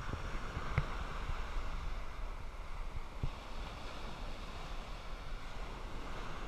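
Wind buffeting the microphone over the steady wash of surf breaking on the beach, with two brief knocks, about a second in and a little past three seconds.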